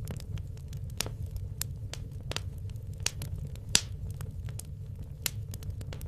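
Wood logs burning in a fireplace: irregular sharp crackles and pops over a low, steady rumble of the fire. The loudest pop comes a little under four seconds in.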